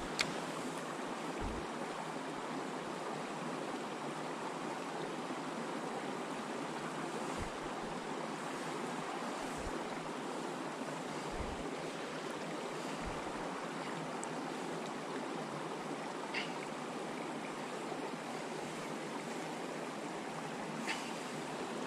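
Steady rush of running creek water, with a few soft low thumps now and then.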